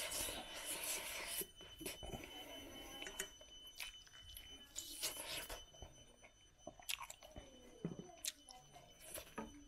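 A person chewing a mouthful of rice and chicken eaten by hand, with short crunches and mouth clicks; the chewing is loudest at the start and again about five seconds in.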